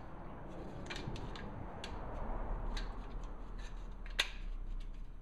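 Car stereo's metal mounting sleeve being worked into a dash adapter plate by hand: scattered clicks and scrapes, with one sharper click about four seconds in.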